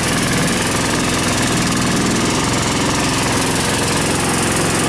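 Engine of a Taiga karakat all-terrain vehicle running steadily under load as it pulls up a snowy slope, its carburettor freshly cleaned after a loss of power.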